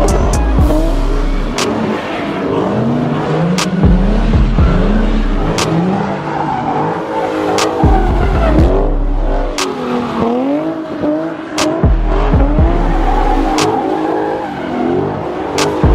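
Car engines revving and tyres squealing, mixed with music whose deep bass note hits about every four seconds.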